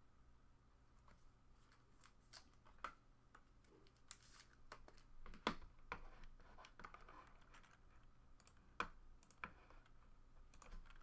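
Faint clicks, taps and soft rustles of trading cards and their holders being handled and shuffled, with a couple of sharper clicks about halfway through and near the end.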